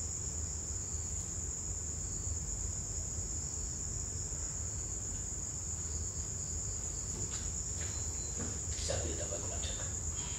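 Crickets chirring steadily at a high pitch over a low rumble, with a few faint knocks and rustles near the end.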